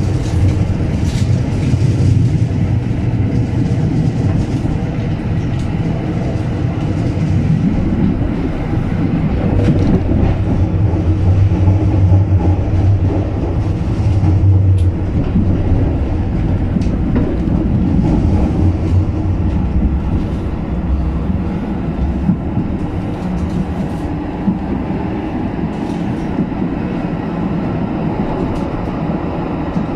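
A 1977 light-rail car running along street track, heard from just behind the driver's cab. There is a steady low rumble of running gear and wheels on rail, with scattered clicks and knocks. It eases a little in the last several seconds.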